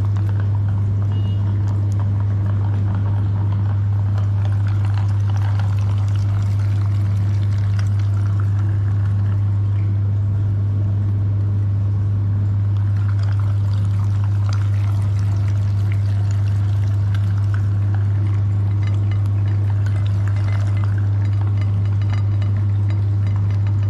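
Meat grinder's electric motor running with a loud, steady low hum, with faint scattered clicks and crackles over it.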